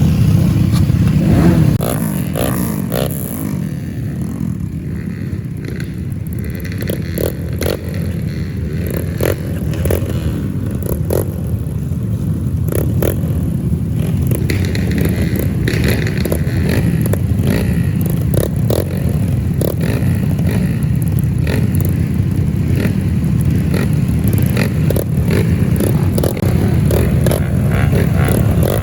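Trail motorcycle engines running and revving hard during a dirt-circuit race, with scattered knocks and clatter. The sound dips about two seconds in and then builds back up.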